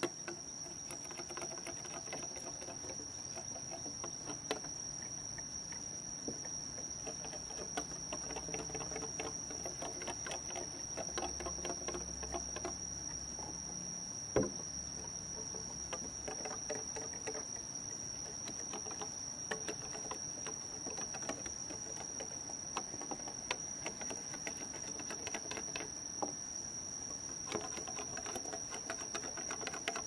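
Scattered light taps and clicks, with one sharper knock about 14 seconds in, over a steady high-pitched drone.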